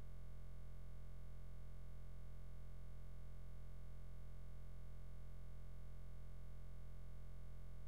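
Steady low electrical hum with fixed overtones above it, unchanging throughout.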